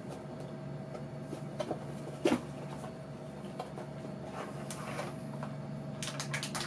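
Small cardboard box being opened and its packaging handled by hand: scattered rustles and clicks, a louder knock a little over two seconds in, and a quick run of clicks near the end, over a steady low hum.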